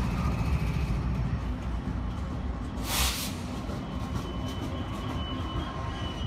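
BNSF SD70ACe diesel locomotives coasting past beneath, their engines a low rumble that fades after about a second, with a brief hiss about three seconds in. Empty coal hopper cars then roll by with repeated wheel knocks and a faint high wheel squeal near the end.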